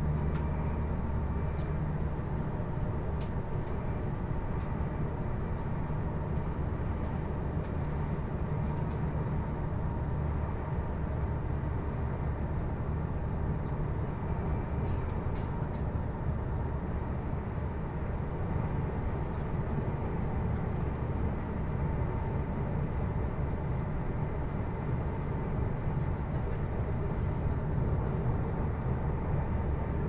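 Interior running noise of a JR East E259 series Narita Express train moving at speed: a steady low rumble and hum with a few faint scattered ticks.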